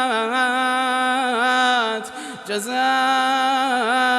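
A male Quran reciter's unaccompanied voice in melodic tajweed recitation, holding long, ornamented notes. There are two sustained phrases with a brief breath-like break about two seconds in.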